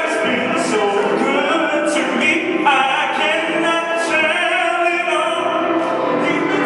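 A group of voices singing together, choir-like, with several sung lines overlapping throughout.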